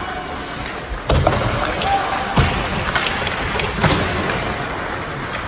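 Ice hockey game in play: puck, sticks and players striking the rink boards. A heavy thud about a second in, then three sharper knocks over the next three seconds.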